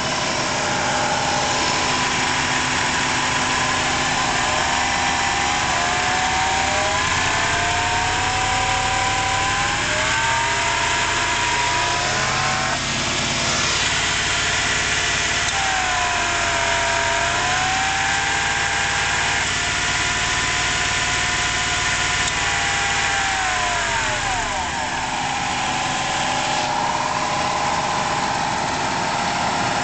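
The 5.7-litre LT1 V8 of a 1994 Buick Roadmaster running with the replaced A/C compressor engaged, its speed raised by hand: it climbs from about six seconds in, dips briefly, climbs again, then drops back to idle near the end. Under it the compressor growls, a noise a mechanic with a stethoscope traced to the compressor itself rather than its bearing.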